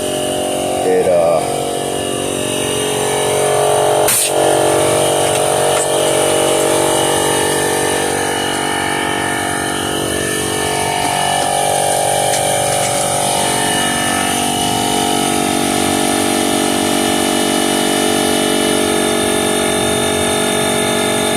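Ridgid 18-volt cordless 1-gallon air compressor running steadily as it pumps up its tank toward its 125 psi auto shut-off, a loud, even machine hum. There is one sharp click about four seconds in.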